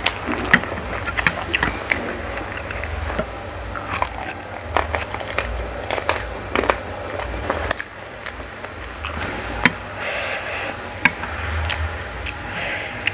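Close-miked chewing of instant noodles: wet mouth sounds with many sharp, irregular clicks.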